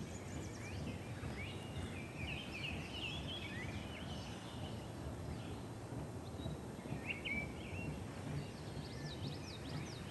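Wild birds singing: a scatter of short chirps and trills, busiest a couple of seconds in and again near the end, over a low steady rumble.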